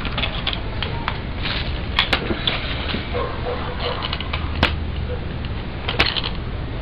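Scattered sharp clicks and knocks, about five, from a hand handling a nitro RC truck, over a steady hiss.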